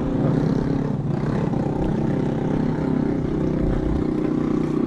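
An engine runs steadily at low speed, a constant motor drone whose pitch wavers slightly in the first couple of seconds.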